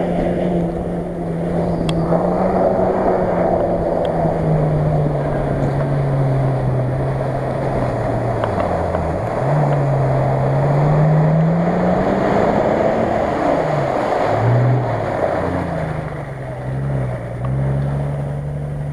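Off-road SUV engine revving through deep mud, its pitch rising and falling with the throttle and dropping sharply twice, over a steady rushing noise of tyres churning mud and water.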